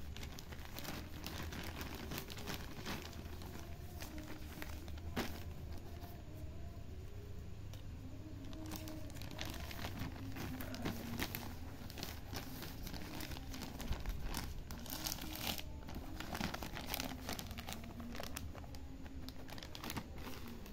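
Plastic packaging crinkling and rustling in irregular crackles as hands unwrap a parcel: a plastic mailer sheet, textured black wrapping and a frosted plastic drawstring bag.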